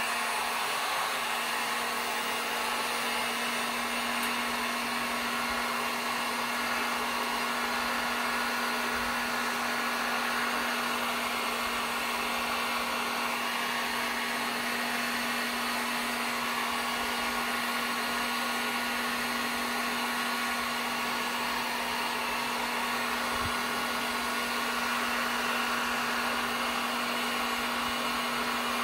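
Handheld electric heat gun running steadily: a constant rush of blown air over a low, steady motor hum.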